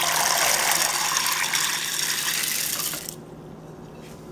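Dried northern beans poured from a bowl into a slow cooker full of water and chicken stock: a steady rushing splash that stops suddenly about three seconds in.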